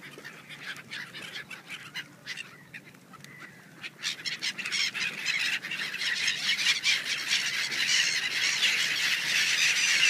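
A large flock of gulls calling while feeding over water, a dense mass of overlapping short calls that grows louder and thicker from about four seconds in.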